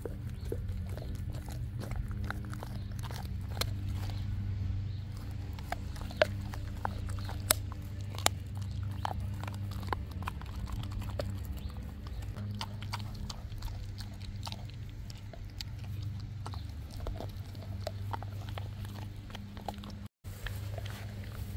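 Dog chewing a raw meal of lamb shank and ground beef, with many sharp clicks and cracks.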